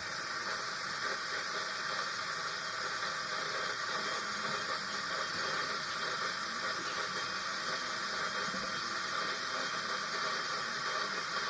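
Water running steadily from a faucet.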